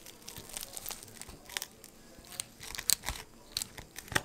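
A kitchen knife sawing through the crisp, flaky baked crust of a rolled potato börek. It makes an irregular run of crackles and crunches, with a few sharper snaps as the layers break.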